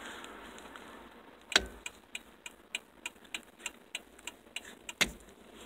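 Turn-signal flasher ticking steadily, about three ticks a second, with a sharper click from the indicator stalk as it is switched on about a second and a half in and off again near the end.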